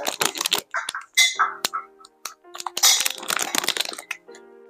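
Scattered clicks, knocks and rustling of plastic hoop parts and hardware being handled, with faint steady music tones underneath.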